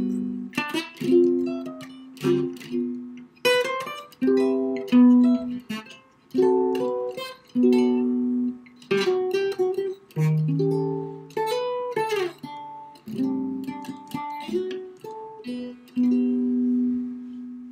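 Solo acoustic guitar playing jazz chords and melody notes: chords plucked and left to ring, in short phrases with brief gaps between them.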